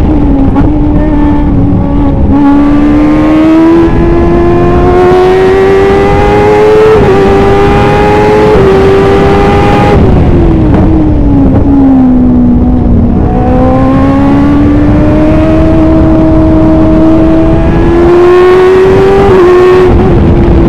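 Kawasaki ZX-10R inline-four engine of a Formula 1000 race car at speed, heard from the cockpit: the pitch climbs steadily with short dips at upshifts, falls off about halfway through as the car slows for a corner, then climbs again to another shift near the end.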